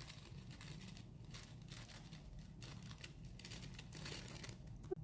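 Jelly slime being worked by hand: faint, irregular sticky crackles and squishes as it is stretched and pressed.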